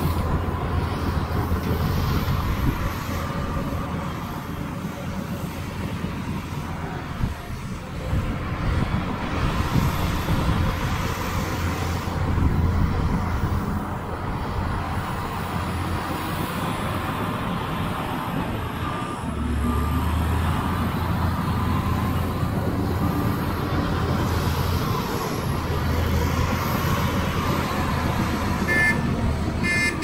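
Heavy earthmoving machinery's diesel engine running steadily, its low rumble swelling for a couple of seconds a little past the middle. Near the end a reversing alarm begins beeping.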